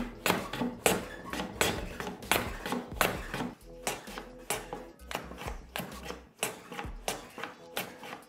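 Veritas low angle jack plane shooting a hardwood mitre on a shooting board: a run of quick cutting strokes, about two a second, as the blade shears the end grain. Background music plays underneath.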